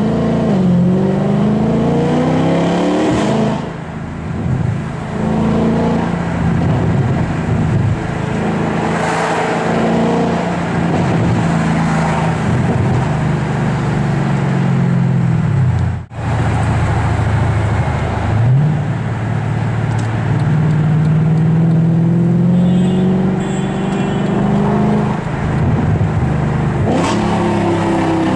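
Mercedes-Benz C63 AMG Black Series 6.2-litre V8 with an IPE aftermarket exhaust, heard from inside the cabin while driving: the revs climb in several short pulls and drop back on each shift or lift of the throttle, with stretches of steady cruising between.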